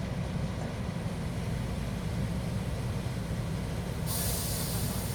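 Heavy machinery running steadily with a deep rumble, joined by a loud hiss about four seconds in.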